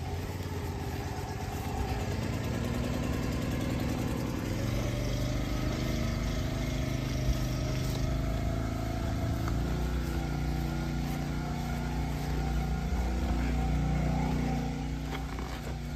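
An engine running steadily, its pitch drifting slightly up and down, somewhat louder near the end before easing off.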